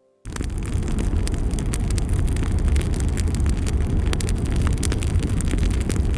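Bonfire burning close by, crackling with many sharp pops over a steady low rumble. It starts abruptly a moment in.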